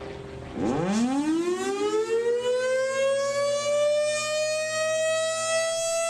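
Single-tone electromechanical rotating horn siren winding up: one tone rises steeply from a low pitch about half a second in, then levels off into a steady wail.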